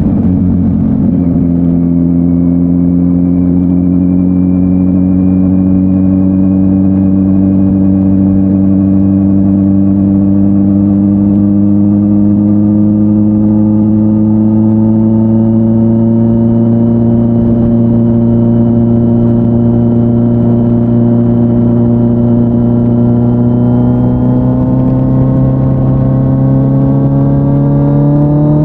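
Kawasaki Z900's inline-four engine through an SC-Project S1 exhaust, running under steady throttle while riding. Its note dips about a second in, then climbs slowly as speed builds and rises faster near the end.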